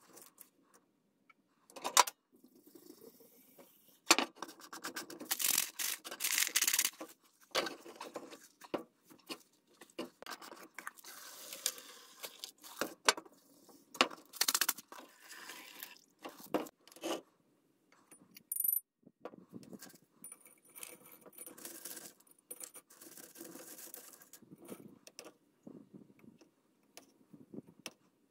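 Loose steel nails and staples clinking, rattling and scraping against each other and against metal cans as they are stirred and handled, with many short clicks and a few brief high rings.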